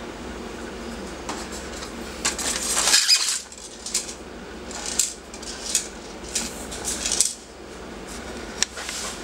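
Scattered sharp clicks and clatter of an ARMY R85 (L85A1) blowback airsoft rifle being handled, with a longer scraping rattle about two and a half seconds in, over a steady low hum.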